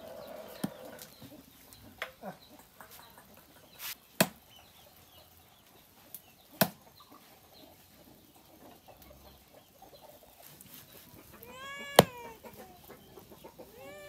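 Large knife chopping raw chicken on a wooden stump block: single sharp chops at irregular intervals, several seconds apart at times. Near the end a short high-pitched animal call is heard.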